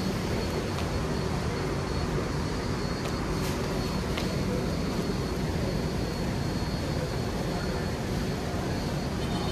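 Singapore MRT Downtown Line train running, heard from inside the carriage: a steady rumble of wheels on rail with a faint high whine and a few light clicks.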